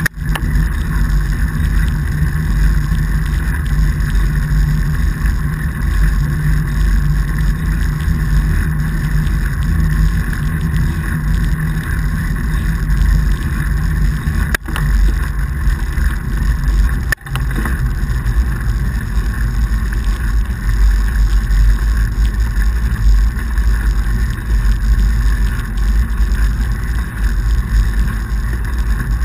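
Steady rumbling ride noise of a fatbike on a packed-snow path: the fat tyres rolling over the snow and wind on the camera microphone. It briefly drops out twice about halfway through.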